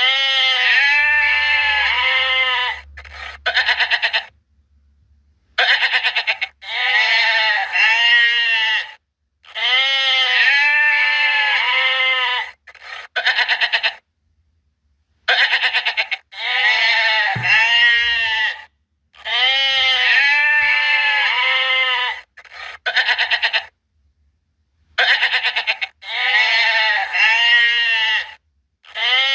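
Goats bleating, one call after another, each a high wavering bleat lasting two to three seconds, with sudden silent gaps between the calls.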